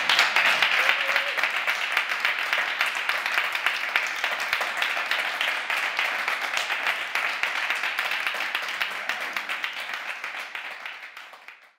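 A small audience applauding, the clapping slowly getting quieter and dying away near the end.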